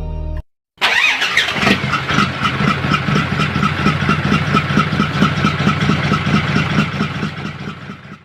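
Diesel truck engine running loudly with an even pulsing beat, starting about a second in and fading out near the end.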